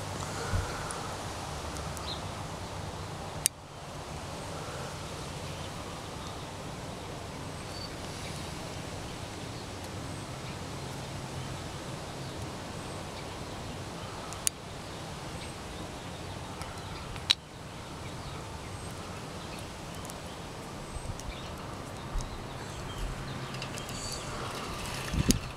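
Steady outdoor background noise with a faint low hum, broken by three sharp, isolated clicks.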